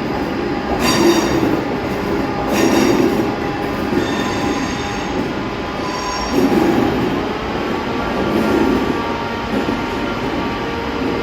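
Class 323 electric multiple unit pulling away, its traction motors giving a steady whine over running rumble. Short squealing bursts come every few seconds.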